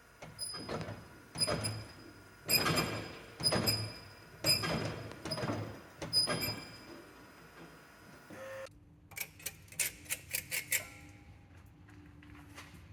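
A series of sharp knocks with a slight metallic ring, about one a second, then a quick run of clicks over a steady low hum.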